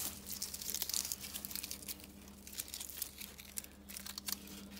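Paper insulation and tape being torn and pulled off a transformer's copper windings by hand: crackling and crinkling, busiest in the first second or so and then thinning out. A faint steady hum runs underneath.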